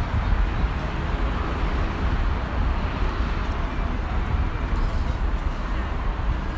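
Steady city-street traffic noise: a continuous deep hum of passing vehicles.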